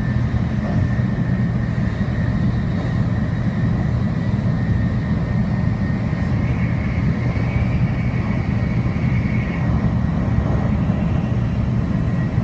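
Shinkansen bullet train running at speed, heard inside the passenger car: a steady low rumble with a faint high whine that briefly rises a little partway through.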